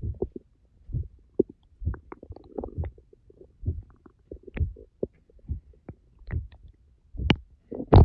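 Empty stomach growling after ten hours without food: irregular low rumbles and gurgles with a few sharp pops, the loudest near the end.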